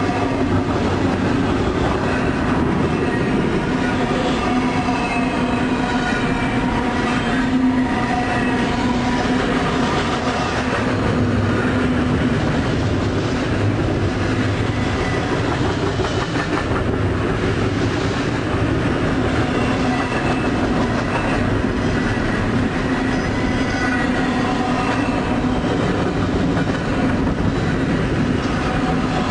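Train running along the track: a steady rumble with clickety-clack of wheels over rail joints, and faint high tones drifting in and out.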